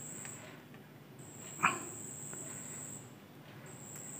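A single short dog yelp about one and a half seconds in, over a high-pitched steady trill that breaks off and restarts twice.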